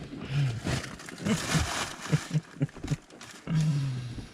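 Indistinct human voice making short syllables and then a drawn-out, slowly falling vocal sound about three and a half seconds in, over a steady hiss of rain.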